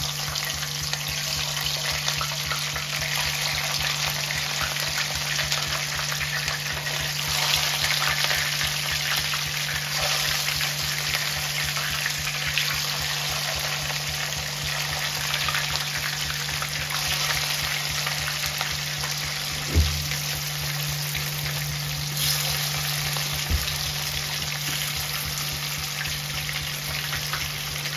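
Battered fish pakora pieces deep-frying in hot oil in a kadai, a steady dense sizzle of bubbling oil as the half-fried pieces are added for their second, full fry. Two brief knocks come a little after halfway.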